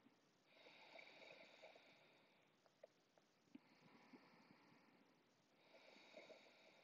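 Near silence with faint, slow breathing: a soft hiss that swells and fades about every two seconds, with a few tiny clicks.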